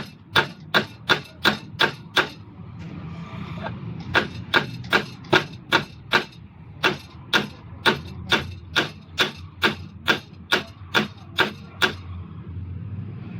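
Common-rail diesel injectors clicking sharply, about two and a half times a second, as they are pulsed in a spray test, over a low steady hum. The clicking pauses for about two seconds near the start and stops near the end.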